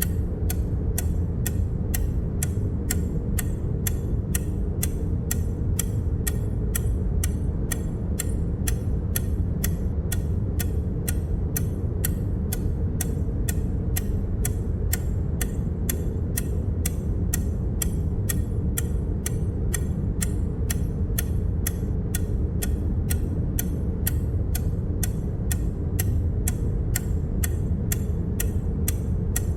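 Short, sharp tick sound effects, about two a second and evenly spaced, each marking one more unary digit being added. Under them runs a steady low rumble.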